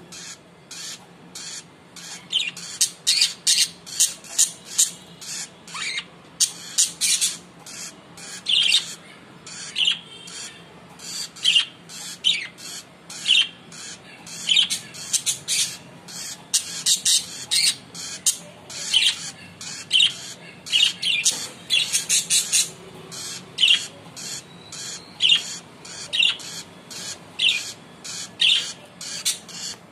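Rosy-faced lovebirds giving loud, shrill squawking chirps, short sharp calls several a second in repeated bursts, starting up about two seconds in.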